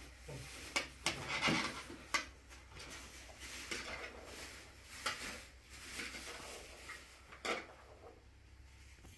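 Dried red beans scooped with a metal spoon from a metal bowl and tipped into plastic bags: beans rattling and the spoon scraping the bowl, with plastic bags rustling and a few sharp clicks.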